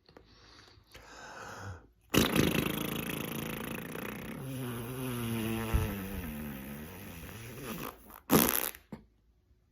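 A person's voice without words: a loud noisy breath about two seconds in, then a long, low sound with a wavering pitch, and a short, sharp breath near the end.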